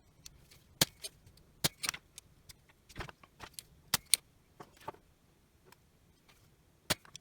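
Irregular sharp clicks and metallic clinks of hand tools working against the drill's circuit board and motor assembly, about fifteen in all, some in quick pairs.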